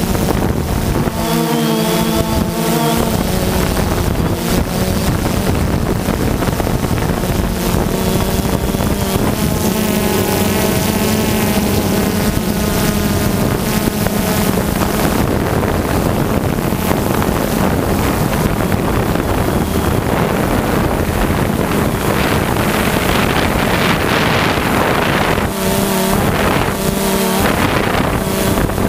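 Quadcopter drone's electric motors and propellers buzzing steadily, heard from its onboard camera, with wind rushing over the microphone. The pitch shifts up and down several times as the motors change speed while the drone manoeuvres and drops lower.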